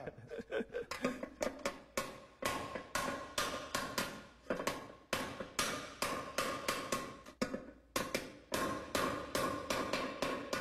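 Hand hammer blows on a sheet of iron, about four strikes a second, each with a short metallic ring: the iron is being hand-raised (uchidashi), the hammering pushing metal in from the edge to lengthen the rabbit's ears.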